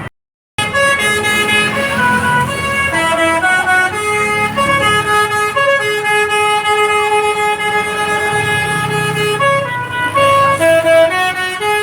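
Basuri-type multi-tone 'telolet' bus horn playing a tune: steady horn notes stepping up and down in pitch, with one long held note in the middle, over a low vehicle rumble. The sound begins after a half-second gap.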